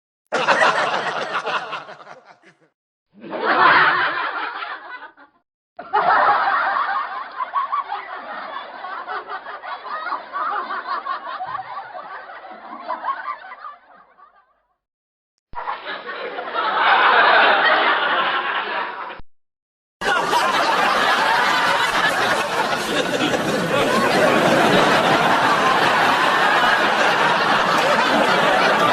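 A string of separate recorded laughs played one after another, each cut off by a short silence. About twenty seconds in, a longer and denser stretch of laughter begins and carries on.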